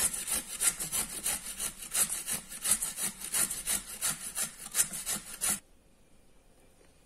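A carrot being grated by hand on a stainless-steel grater: quick, repeated rasping strokes, about three a second, that stop abruptly near the end.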